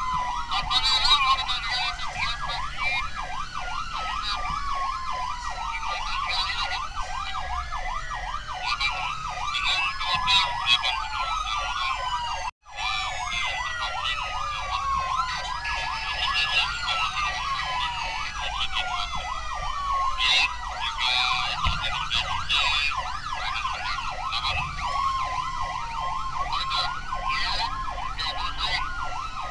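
Several emergency vehicle sirens sounding at once: slow wails that rise and fall every few seconds, overlapping, over a fast warbling tone. The sound cuts out for a moment about twelve seconds in.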